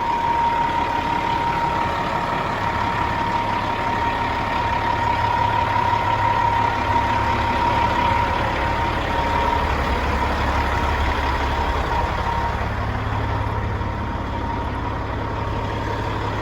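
Caterpillar 3406E inline-six diesel in a Kenworth W900L idling steadily, with a thin high whine over it that fades out about twelve seconds in.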